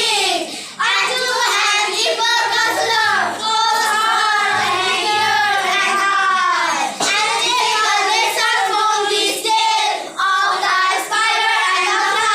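Children's voices chanting a poem aloud in a sing-song recitation, with short breaks between lines.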